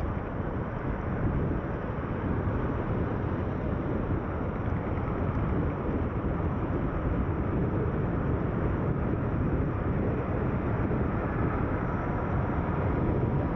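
Steady low rumble of road and engine noise from a car being driven, with no distinct events.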